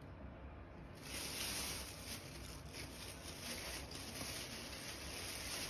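Faint rustling and scratching from a Shiba Inu worrying a cloth sock on a wooden floor. The sound grows slightly louder about a second in and goes on irregularly.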